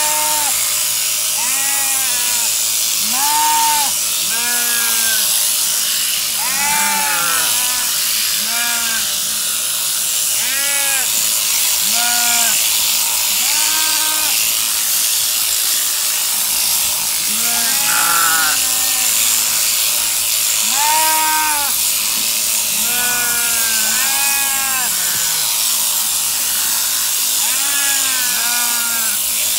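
Sheep bleating again and again, short rising-and-falling calls about once every second or two, over the steady high whirr of a sheep-shearing handpiece on a jointed overhead drive arm running as it clips the fleece.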